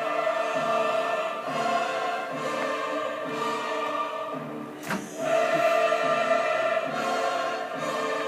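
Background music: a choir singing with orchestra in a classical style, over a steady pulse, with a brief click about five seconds in.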